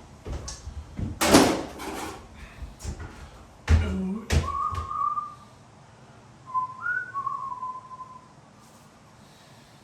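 Several loud rustles and knocks of handling, then a person whistling two short notes, the second one rising briefly and falling back.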